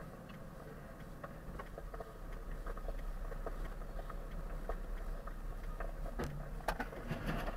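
Low, steady rumble of a vehicle driving, as picked up by a dashcam, with scattered faint clicks and rattles. A few sharper ticks come near the end.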